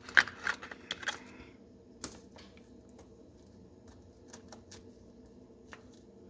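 Small hard clicks and rattles of lock cylinders and keys being handled, a quick cluster at the start and a single click about two seconds in, then only faint ticks.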